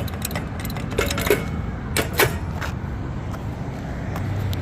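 Steady road-traffic rumble, with a scattering of short sharp clicks and ticks over the first three seconds.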